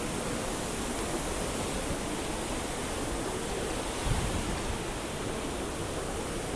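Waterfall rushing close by, a steady, even roar of falling water. About four seconds in there is a brief low bump.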